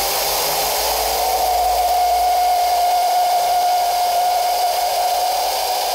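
Air-driven, 3D-printed two-stage centrifugal compressor running: a loud hiss of compressed air driving its turbine, with a steady whine from the spinning impellers that steps up about a second in and holds. This is a test run whose output the builder calls very poor.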